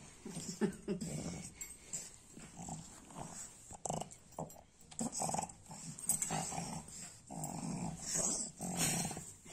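Pug growling in a string of short, irregular growls, with longer ones near the end, as it resists being wrapped up and held for ear cleaning.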